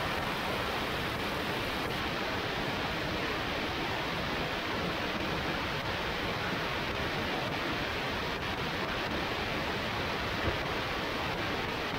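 Steady rushing wind noise of airflow over a camera mounted outside a Flight Design CTSW light-sport aircraft in flight.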